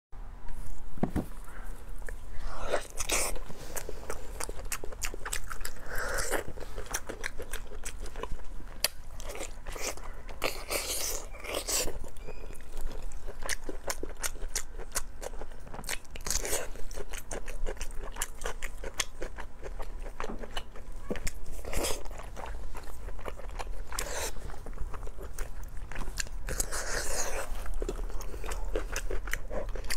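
Close-miked mouth sounds of a person biting and chewing glazed braised pork belly: a steady run of small sticky clicks, with louder bites every few seconds.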